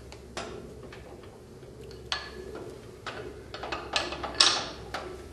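Clicks and metal clanks from a hydraulic bottle-jack mower lift and its steel scissor frame as the jack valve is released and the riding mower is lowered, with the loudest, sharpest clank about four and a half seconds in.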